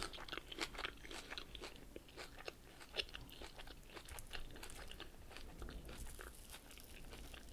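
Close-miked chewing of a mouthful of crunchy lettuce salad: a steady run of small, crisp crunches.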